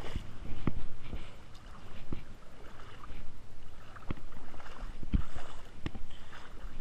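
Creek water sloshing and splashing, with a few irregular dull knocks.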